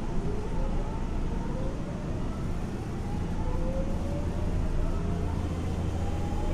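Inside a Nagoya Municipal Subway 3050-series car as it accelerates: the motor whine rises slowly in pitch as several tones together, over a steady low rumble and hum.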